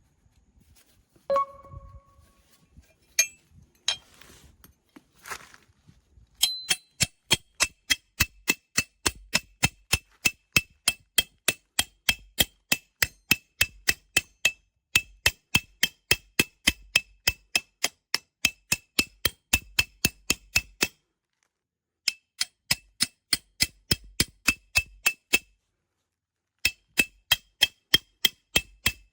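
Camping peg hammer striking a forged steel tent peg over and over, about three sharp ringing clangs a second, in runs broken by two brief silences. A single metallic ring and a few lighter knocks come first.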